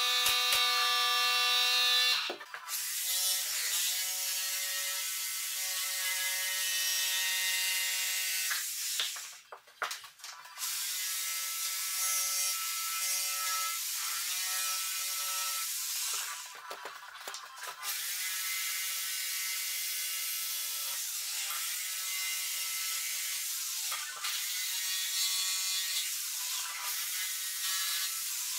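Corded jigsaw cutting a wooden skirting board, its motor buzzing in several long runs with short pauses between them as the cut is stopped and restarted.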